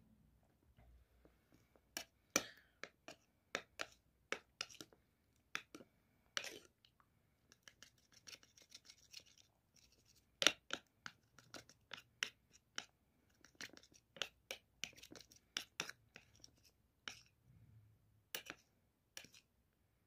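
Metal spoon stirring a runny mixture in a ceramic bowl, clinking and scraping against the bowl in quick, irregular taps, with a few softer scraping stretches in between.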